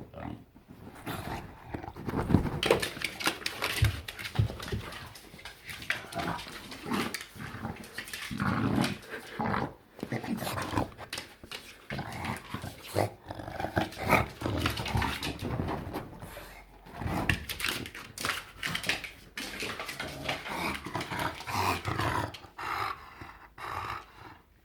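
English bulldog making weird, gremlin-like grunts and growls in quick, irregular bursts during a bout of rough play; the sounds stop just before the end.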